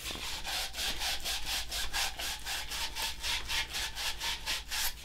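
Sandpaper rubbed briskly back and forth around the end of a copper pipe, a fast even scrubbing of about five strokes a second. The pipe end is being cleaned to bright metal before it goes into a ProPress fitting.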